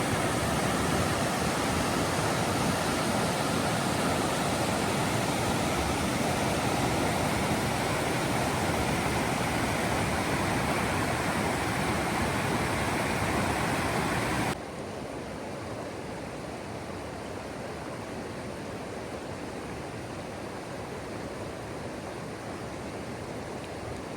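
Waterfall: a loud, steady rush of falling water. About fifteen seconds in it drops suddenly to a quieter, steady water rush.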